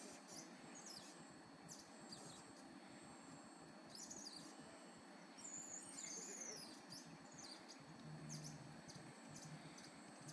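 Barely audible electric servo actuators of a three-axis motion base playing back a ride profile: short high-pitched whines, mostly falling in pitch, as the motors change speed, over a steady high tone.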